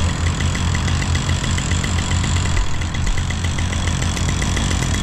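An engine running steadily at idle, with a fast, even ticking over its low hum.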